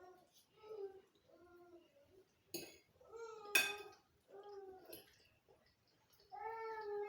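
A cat meowing repeatedly, about five calls, the last one longer and drawn out near the end. A sharp knock, like a dish or cutlery, sounds about halfway through.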